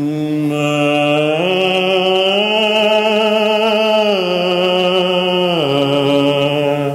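A man's trained singing voice holds one long vowel without a break. It steps up in pitch about a second and a half in, then comes back down in two steps near the end. The voice is being lifted from the body up into the head.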